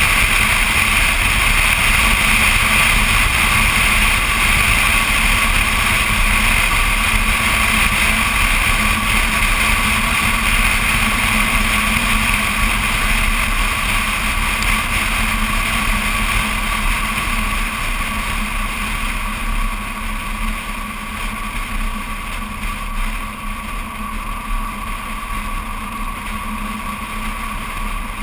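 BMW Z4 Coupé driving at steady road speed, heard through a camera mounted on the outside of the car: a constant mix of engine, tyre and wind noise that eases slightly over the last several seconds.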